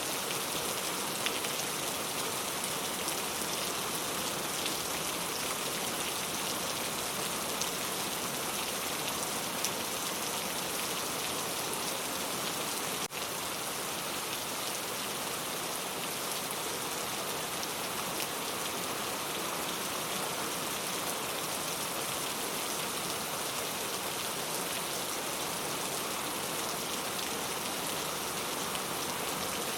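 Steady rain falling: an even hiss with scattered faint drop ticks, broken by a very brief dip a little before halfway.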